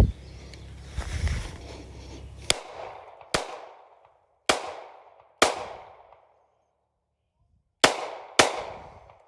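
A gun fired six times at a target in an uneven series: four cracks about a second apart, a pause of about two seconds, then two more close together. Each shot rings out and fades.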